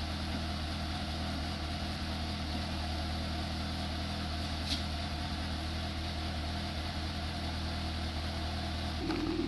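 2015 Suzuki GSX-S750's inline-four idling steadily on fresh AMSOIL 10W-40 full synthetic oil, its mechanical rattle and valve-train clatter noticeably quiet. There is a single light click about halfway through.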